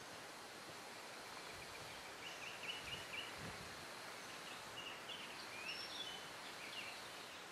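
Songbirds calling faintly over steady outdoor background noise: a quick run of about five short high notes a couple of seconds in, then scattered chirps and short trills. Faint rustling and soft thuds of a cotton pillowcase being handled and knotted.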